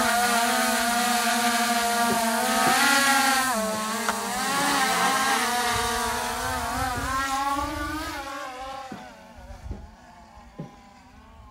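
Quadcopter drone's propellers buzzing, the pitch wavering up and down as it manoeuvres. The buzz fades away over the last few seconds as the drone flies off.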